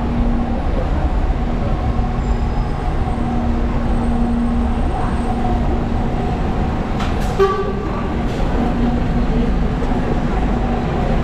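Street traffic dominated by the steady low rumble and hum of a heavy truck's diesel engine running. A short beep sounds once about seven seconds in.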